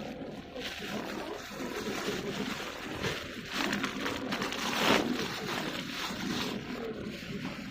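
Ocean waves washing on the shore, with one louder wave surging about five seconds in.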